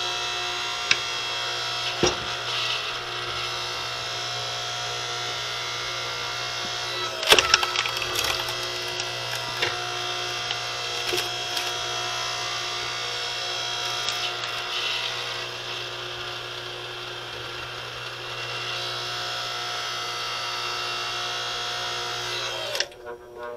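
DR 5-ton electric log splitter running with a steady electric-motor and hydraulic-pump hum while its ram pushes a wood round onto the wedge; the wood cracks and splinters as it splits, loudest about seven seconds in, with smaller cracks around it.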